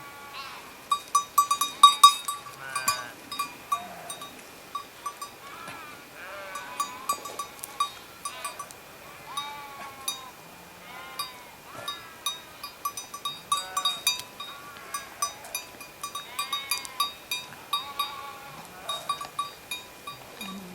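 A flock of sheep bleating, many overlapping calls one after another. Small metal bells on the animals clink and ring all through.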